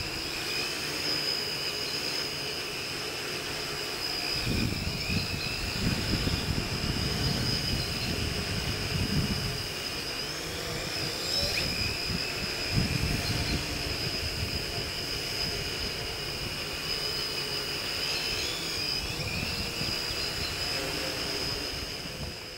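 Six-rotor hexacopter (Droidworx AD-6 frame, MikroKopter electronics) in flight: its six electric motors and propellers give a steady high whine that shifts pitch slightly now and then as it manoeuvres. Low rumbling gusts come and go, about four seconds in and again near thirteen seconds, and the sound fades out at the end.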